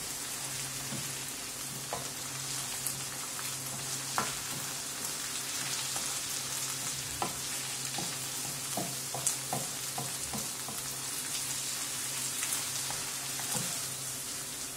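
Diced carrot, onion and green pepper sizzling in olive oil in a frying pan, stirred with a wooden spatula. The spatula makes scattered light taps and scrapes against the pan over a steady hiss, with a low steady hum underneath.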